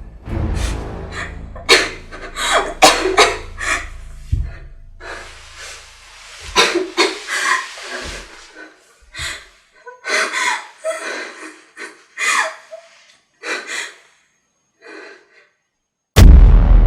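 A young woman gasping and panting in panic, ragged breaths coming in bursts that grow sparser and fall silent, over a low music drone that fades out. A sudden loud booming music hit comes near the end.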